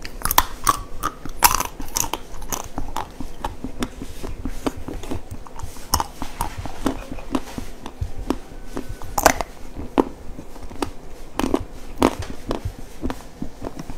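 Frozen chocolate figurines being bitten and chewed close to the microphone: a steady run of hard crunches and snaps, with the loudest bites near the start, about nine seconds in and about twelve seconds in.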